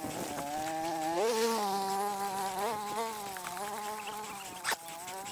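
A flying insect, a fly or bee, buzzing close to the microphone with a steady tone that wavers slightly in pitch. A single sharp click comes near the end.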